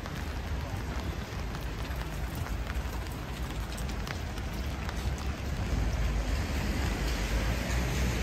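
Steady rain falling, with scattered drops tapping close by, over a low rumble that grows a little louder about six seconds in.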